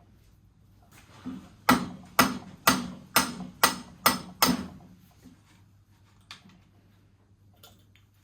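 Hammer blows on metal: a light tap, then seven sharp, evenly spaced strikes at about two a second, each ringing briefly. They are knocking the steering stem of a dirt bike's triple clamp out of the frame's head tube.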